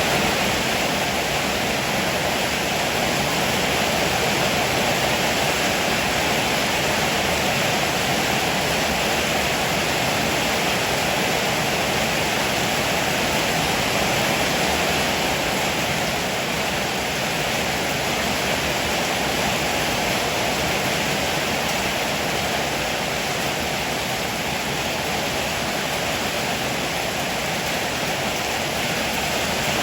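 Heavy rain pouring steadily onto a roof, a dense, even hiss with no thunder claps.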